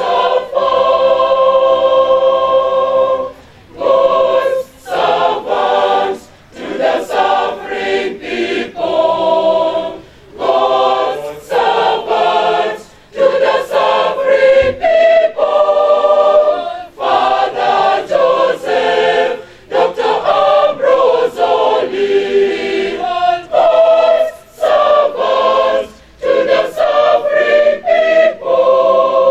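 Large mixed choir of men's and women's voices singing an anthem in parts, in phrases broken by short pauses every few seconds.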